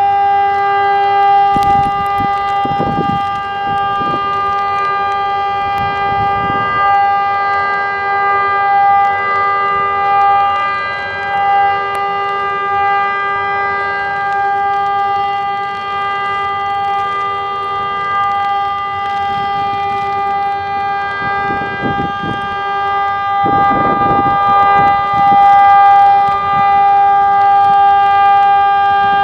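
TESLA UEAJ-II 600 electronic siren sounding a steady, unchanging tone through plastic horn loudspeakers: the continuous test tone of the Czech siren test. Low background rumbles swell briefly under the tone about two seconds in and again about 22 to 25 seconds in.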